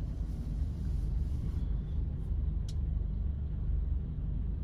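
Steady low rumble inside a car's cabin while it waits at a red light, its engine idling. A single faint click comes about two and a half seconds in.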